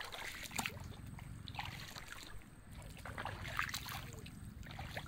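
Bare feet squelching in soft, wet mangrove mud: several steps, the loudest about three and a half seconds in, with small wet clicks and pops in between.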